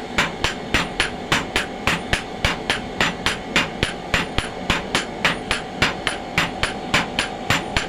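Blacksmith's hammer striking metal on an anvil in a fast, even rhythm of about four blows a second, some blows harder than others, over a steady hum.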